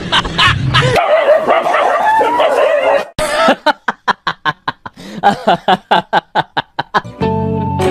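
A dog yelping and whining in wavering cries over background music for about three seconds. After a sudden cut comes a long run of rhythmic laughter, about three short pulses a second, to a lion's grimacing face. Music with steady notes starts near the end.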